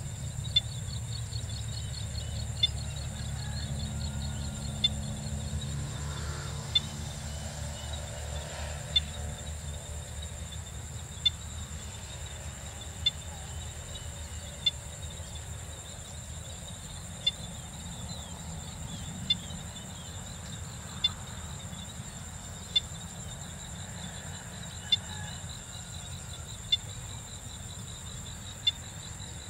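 Evening insect chorus: a steady high trill with faster pulsing chirps beneath it, over a low rumble. A short, sharp call stands out above the chorus, repeating about every two seconds.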